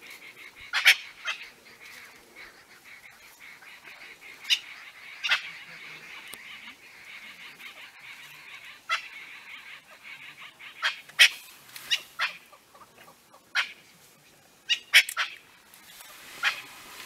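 Francolins giving alarm calls: short, harsh, loud calls at irregular intervals, several coming in quick pairs or clusters, raised at a leopard close by.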